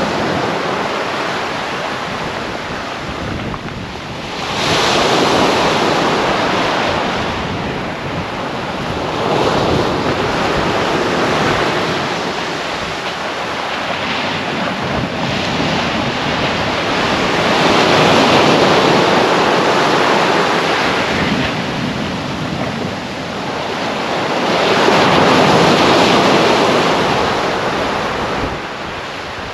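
Small sea waves breaking and washing up a sandy beach. The surf noise swells and fades with each wave every several seconds.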